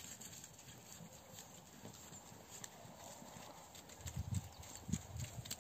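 Goats walking on snowy ground: faint hoof steps and scuffing, with a few louder low thuds in the last second and a half.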